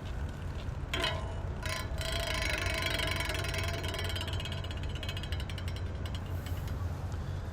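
Bicycle wheel spinning freely, its freewheel ratcheting in a rapid, even clicking that builds about two seconds in and fades away near the end.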